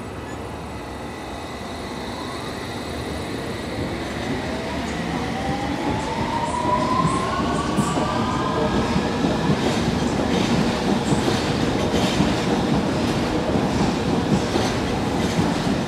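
London Underground S Stock train pulling away and accelerating, its traction motors giving a whine that rises in pitch over several seconds. The sound grows louder as the wheels clatter over the rail joints.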